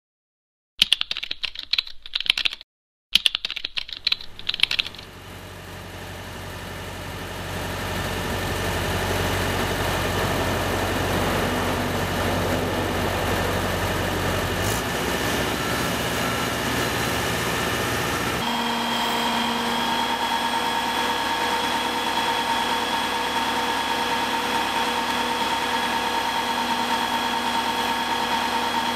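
Keyboard typing clicks for the first five seconds. Then the steady engine of working machinery fades in and runs on, its tone shifting once about eighteen seconds in.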